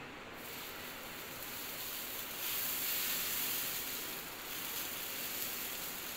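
Dosa batter sizzling on a hot tawa as it is spread in circles with the bottom of a bowl. The hiss comes up just after the start and is loudest from about two and a half to four seconds in.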